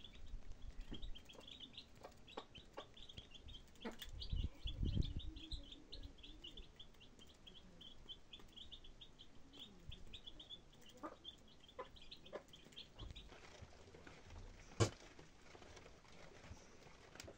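Domestic chicks peeping rapidly and continuously around a hen, the peeps stopping about three-quarters of the way through. A low rumble comes about four seconds in, and a single sharp knock near the end.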